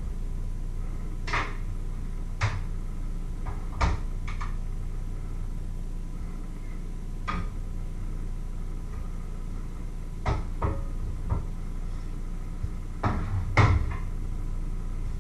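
Scattered clunks and taps, about ten of them at irregular intervals and loudest near the end, from kitchen items being handled and set down on a wooden worktop and cutting board, over a steady low hum.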